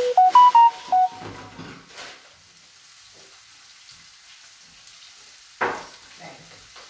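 A quick electronic jingle of five or six beeping notes, stepping up and then down in pitch, then a faint steady sizzle of artichokes frying in a pan, with a single sharp knock near the end.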